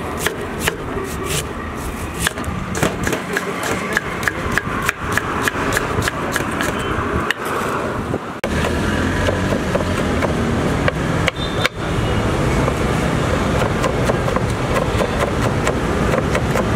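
Knife chopping onion on a wooden chopping block: quick repeated knocks of the blade on the board. Behind it runs a steady noise of street traffic, which grows louder from about halfway as the knocks thin out.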